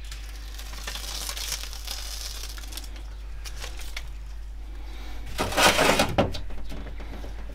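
Crinkling and rustling of the backing tape being peeled off a self-adhesive foam sealing strip. A little over five seconds in comes a louder scraping clatter as the new aluminium heater matrix is handled and set on the metal bench.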